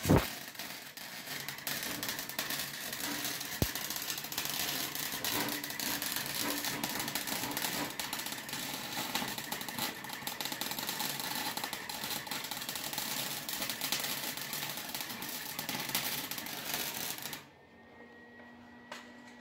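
Electric arc welder laying a bead on steel exhaust pipe: the steady crackling of the arc, starting with a sharp snap and stopping about seventeen seconds in.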